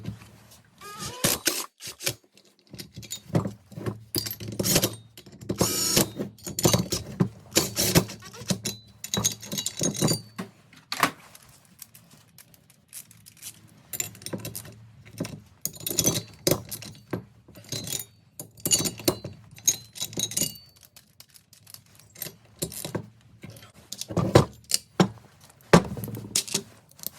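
Irregular clinks, taps and clatters of metal hand tools and small engine parts being handled and set down, over a steady low hum.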